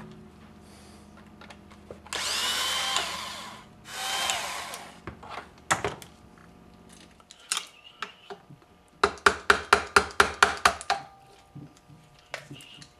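Cordless driver running in two short bursts, its motor whine wavering in pitch as it backs out fasteners on an ATV transmission case. A few clinks of tools follow, then a quick run of about a dozen sharp clicks near the end.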